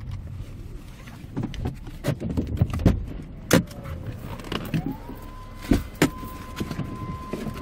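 Clicks and knocks as the driver moves about in his car seat. About five seconds in, a small electric motor in the cabin starts whining, rising in pitch and then holding steady.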